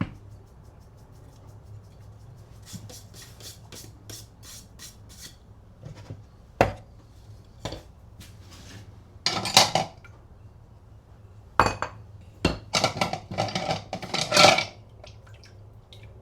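Small metal pieces clinking and rattling as they are handled. First comes a run of light clicks, then a few sharp knocks, then short bursts of rattling in the second half.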